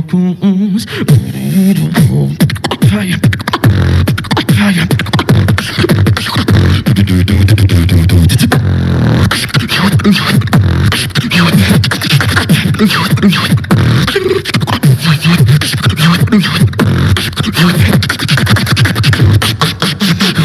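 Competition beatboxing into a handheld microphone: rapid vocal drum sounds (kick, snare and hi-hat-like clicks) over a low humming bass line.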